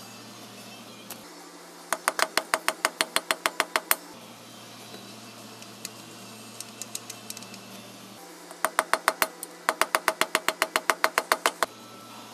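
Ratchet wrench clicking in quick even strokes, about seven a second. One run of about two seconds is followed by a second run of about three seconds with a brief break partway through.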